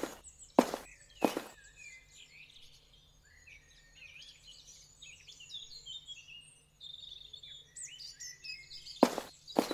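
Small birds chirping and twittering, many short quick notes, with sharp chopping strikes: three in the first second and a half and two more near the end.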